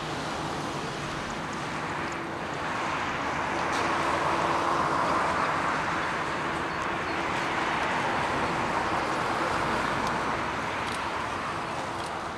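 Boeing 787-8 airliner's jet engines heard from behind as it climbs away after takeoff: a steady rushing roar that grows louder a few seconds in and begins to fade near the end.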